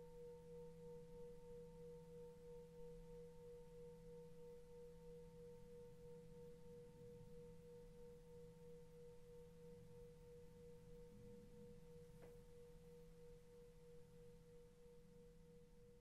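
Tibetan singing bowl ringing out after a strike: a steady tone with a fainter higher overtone, slowly dying away. The strike marks a change of hand position in a Reiki session.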